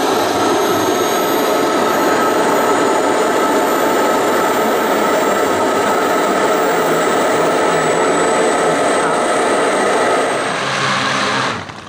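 Model jet's gas turbine engine running loud, a steady rush with high whistles that slowly rise in pitch as it spools up. The sound cuts off suddenly near the end.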